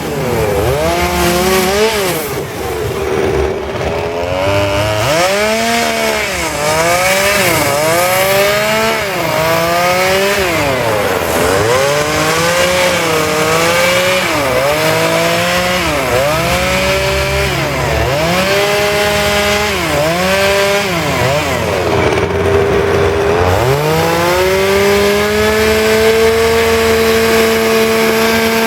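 Two-stroke petrol chainsaw carving wood. The engine revs up and drops back again and again in short cuts, then holds a steady high rev near the end.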